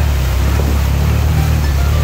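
Side-by-side UTV engine running steadily as the machine pushes through swamp water, with water washing and churning against its front.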